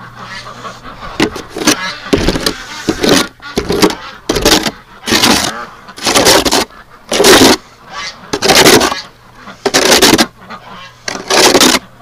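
Domestic geese honking over and over, loud harsh calls about one a second.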